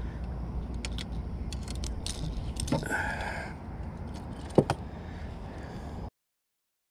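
Small metallic clicks and clinks of pliers working a lure's hooks free from a largemouth bass's mouth, over a low steady rumble. One sharper click comes about four and a half seconds in, and the sound cuts off suddenly near the end.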